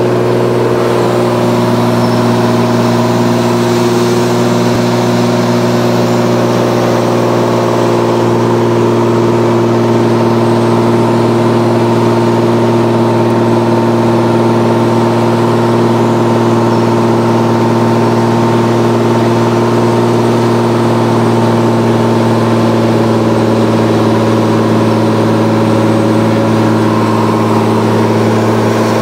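Engine and propeller of a 1948 Ryan Navion light aircraft, a steady, even drone heard from inside the cabin in flight.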